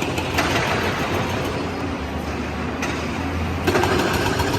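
Steady engine-like mechanical running noise with a low hum and a fine rattle, from a toy vehicle.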